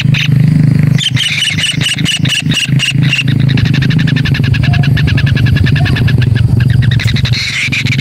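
White-throated kingfisher nestlings giving rapid, repeated chittering begging calls, quickening after a few seconds. A steady low hum runs underneath.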